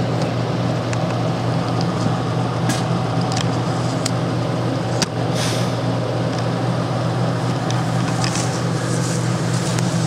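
Heavy truck's engine running steadily at idle close by, a low even hum, with a few sharp clicks or knocks over it.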